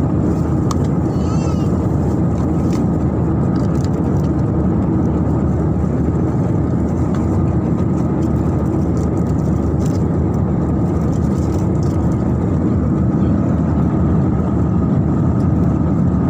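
Steady engine and airflow noise heard inside a jet airliner cabin, an even, unchanging drone with a faint steady tone above it.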